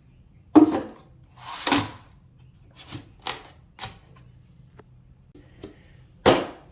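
Objects being handled: a series of knocks and clicks with a short rustle, the loudest knocks about half a second in and near the end.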